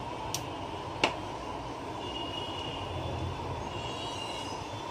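A steady mechanical whir or rumble, with a faint high whine over it and two sharp clicks in the first second, the second one louder.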